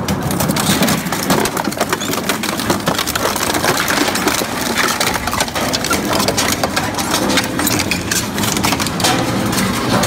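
Industrial crushing machine breaking up scrap: a dense, continuous run of cracks and snaps over the steady hum of its motor.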